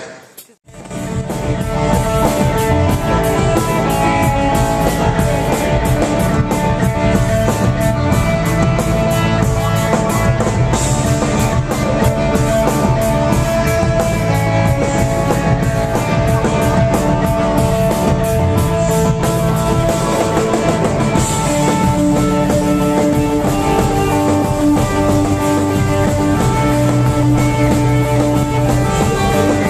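Rock band playing: electric guitar over a drum kit, starting after a brief silent gap about half a second in.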